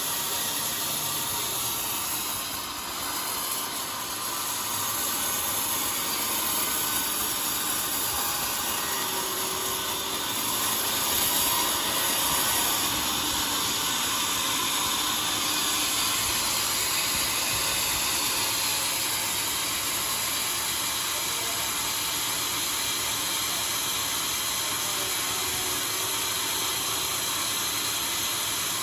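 Homemade sawmill running, its saw cutting through a log with a steady hiss-like noise that holds even throughout.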